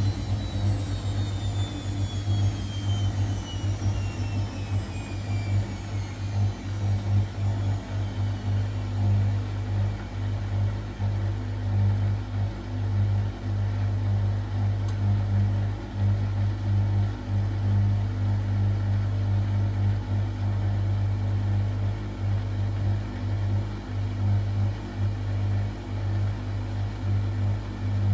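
Bosch WFCX 2460 OE front-loading washing machine running: a steady, pulsing low hum, with a motor whine that falls in pitch over the first few seconds.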